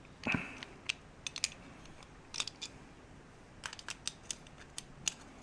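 Small, sharp metallic clicks and ticks at irregular intervals, from the key, levers and bolt of an opened two-lever Efco mortise lock being handled and worked.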